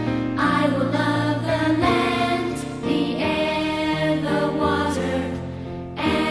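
Slow intro music of long, held chords that change every second or so, dipping in loudness shortly before the end.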